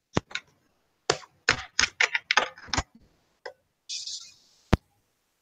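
Computer keyboard keys clicking in an irregular run, heard over a video call. There are a couple of clicks, then a quick flurry of about eight, a short hiss, and one last sharp click near the end.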